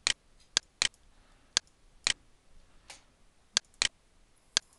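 Computer mouse clicking: about eight short, sharp clicks at irregular intervals, some in close pairs.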